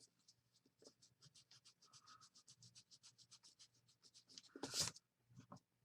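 Faint pen or stylus writing: a quick, even run of small scratchy strokes, with a louder brush of noise near the end, over low room hum.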